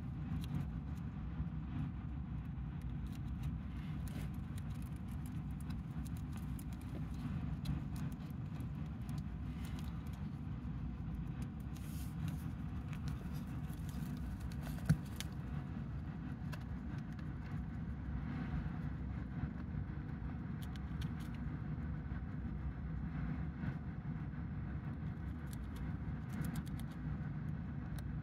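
Dwarf hamster nibbling a cabbage leaf: faint crisp crunching clicks over a steady low rumble, with one sharper click about halfway through.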